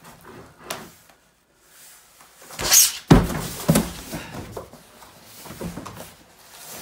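A cardboard carton slides down a wooden plank ramp laid over the stairs with a brief rushing scrape, then hits the bottom with a loud thud and a second bump about half a second later.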